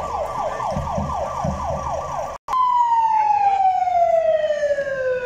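Fire-brigade ambulance's electronic siren. It first runs a fast yelp, rising and falling about four or five times a second. After a brief break about two and a half seconds in, it changes to a long, slow falling wail.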